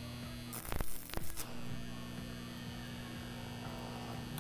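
Homemade arc welder built from four microwave oven transformers humming steadily while powered. About half a second in, the welding rod strikes an arc on the steel bar with a few sharp crackles lasting under a second, then the steady hum carries on.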